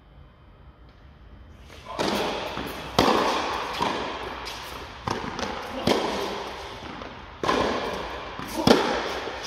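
A tennis rally: sharp pops of racquets striking the ball and the ball bouncing on the court, about one every second, each ringing on in a long echo in a large indoor tennis hall. The rally starts about two seconds in.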